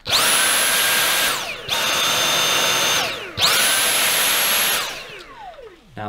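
Dyson V8 Animal+ cordless vacuum's motor switched on with the trigger and run on its two power settings. It whines up sharply and runs for about a second at a high pitch, runs for about a second and a half at a lower pitch, then runs again at the high pitch. After each run the whine falls as the motor spins down; the last spin-down is longer and drawn out near the end.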